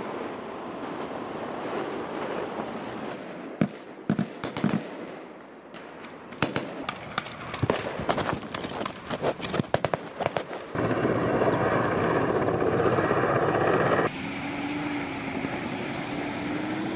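Gunfire: many sharp shots in quick, irregular succession, thickest in the middle, during a military field exercise. Then a loud steady rush of noise, and near the end a military Humvee's engine running with a slowly rising tone.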